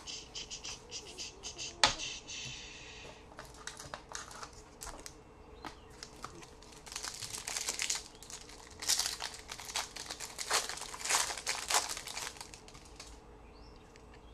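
Foil trading-card pack wrapper crinkling and being torn open, with crackling rustles throughout. There is a sharp click about two seconds in, and the crinkling is loudest in the second half.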